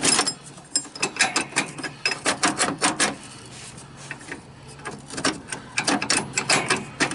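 Ratchet wrench clicking in quick runs with short pauses, as it works a stuck mower deck hanger bolt loose.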